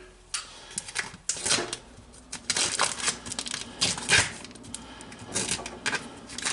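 Plastic hot dog packaging crinkling and clicking in irregular short bursts as the pack is sliced open and handled.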